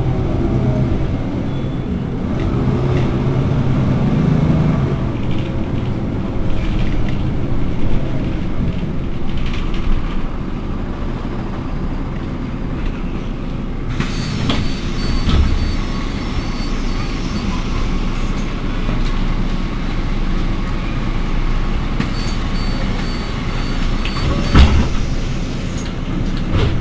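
Iveco Urbanway 18 articulated city bus standing at a stop with its engine idling, a steady low rumble. About halfway and again near the end come two spells of faint high beeping, along with a few sharp knocks, the loudest near the end.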